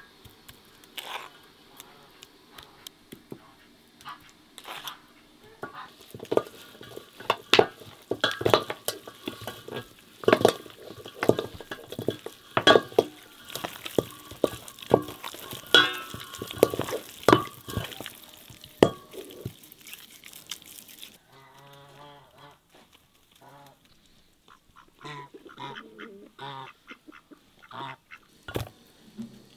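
Raw lamb being rubbed and kneaded by hand with a wet spice paste in an enamel bowl, making dense wet squelching and smacking. From about two-thirds of the way in, a domestic goose honks several times.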